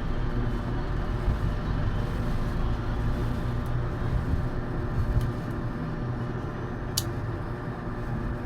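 Steady background hum and rumble, with a few light clicks of small airsoft gearbox parts being fitted and slid by hand; the sharpest click comes about seven seconds in.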